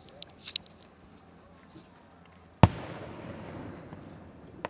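Aerial fireworks: a few small crackling pops near the start, then one loud shell burst a little past halfway, its boom rolling on and fading slowly over the water.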